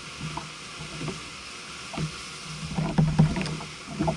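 Small waves lapping and knocking against a kayak hull, over a steady hiss of wind and water. The knocks come irregularly and are loudest in a run about three seconds in.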